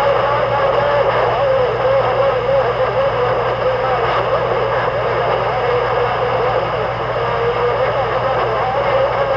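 A loud engine running steadily, its pitch wavering slightly without a clear rev up or down.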